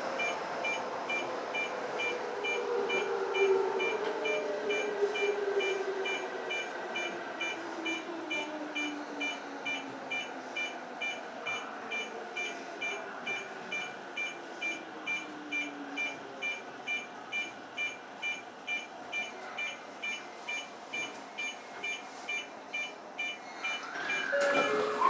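Electric commuter train (Toyo Rapid Railway 2000 series) pulling away and running through a tunnel. The traction motors and inverter whine in several tones that slide slowly down in pitch, over a steady rumble. A high beep repeats at about two a second throughout.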